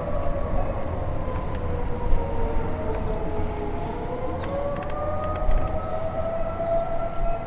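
Federal Signal EOWS-612 electronic tornado warning siren sounding its wail during a siren test. Its pitch slides down slowly over about three and a half seconds, then climbs back up.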